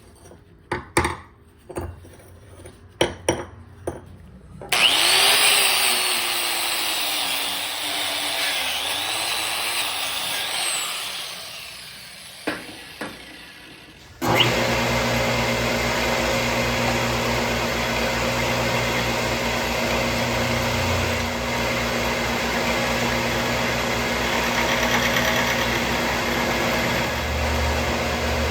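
Workshop power tools cutting metal: a few sharp knocks of parts being handled, then a tool running with its pitch sliding up and down as the load changes, which winds down. About halfway through a second machine starts abruptly and runs steadily with a low hum.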